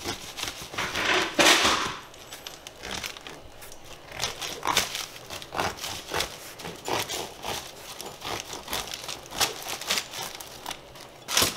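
A serrated bread knife sawing lengthwise through a crusty French baguette: repeated rasping strokes through the crust, a few each second, loudest about a second in.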